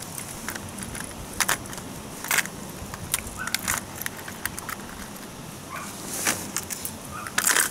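Small hard plastic fishing lures and their hooks clicking and clattering against the compartments of a plastic tackle box as they are handled. The sharp clicks come irregularly, a few seconds apart, over a steady outdoor hiss.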